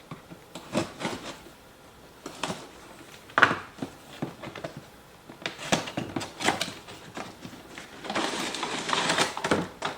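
A toy's box and packaging being opened and handled: scattered knocks and clicks, one sharper knock about three and a half seconds in, then a couple of seconds of rustling near the end.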